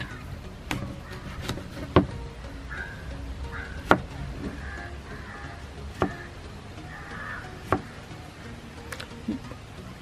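Kitchen knife cutting through watermelon pieces and knocking down onto a plastic cutting board: about seven sharp knocks, a second or two apart, the strongest ones near the middle.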